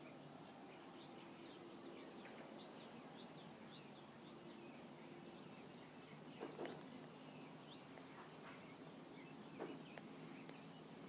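Faint small birds chirping repeatedly over a low steady hum, with two soft bumps about six and a half and nine and a half seconds in.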